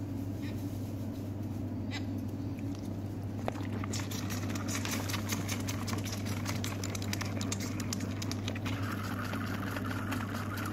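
Blesbok calf sucking milk from a bottle teat: rapid wet smacking clicks that start about four seconds in and keep going, over a steady low hum.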